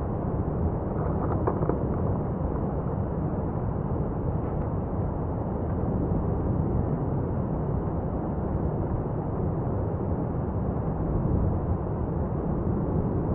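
Lava fountain of Etna's South-East Crater in paroxysmal eruption: a continuous low rumble with no distinct single blasts, and a few faint pops about a second and a half in.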